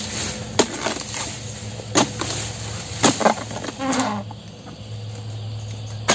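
Steel harvesting chisel (dodos) on a long pole striking the stalks in the crown of an oil palm: sharp chopping knocks, with a quick double strike about three seconds in, over a steady low hum.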